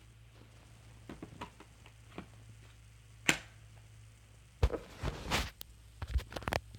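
Plastic vacuum hose and attachments being handled: scattered clicks and knocks, a sharp click about three seconds in, and a cluster of louder knocks and rattles near the end.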